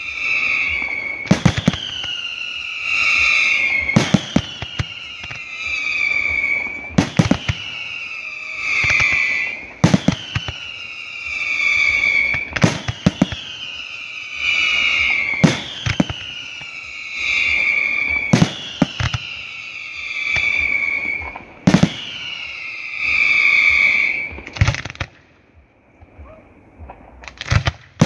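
Fireworks display: a regular series of shell bursts about every three seconds, each followed by a high whistle that falls in pitch for about two seconds. Near the end the whistles stop and it goes quieter before a few last bangs.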